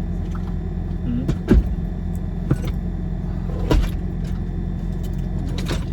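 Car engine idling with a steady low hum. A few short clicks and knocks of handling sound over it, the loudest about a second and a half in and again near four seconds.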